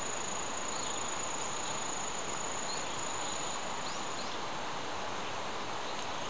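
Outdoor insect trilling in one steady high note over an even background hiss; the trill stops about four seconds in, and a few faint short chirps sound above it.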